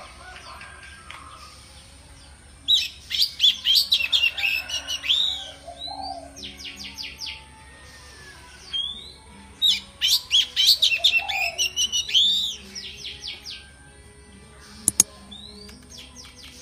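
Male Oriental magpie-robin (kacer) singing: two bursts of quick, varied whistles and rapid repeated notes, one a few seconds in and one through the middle, with quiet gaps between. Two sharp clicks come close together near the end.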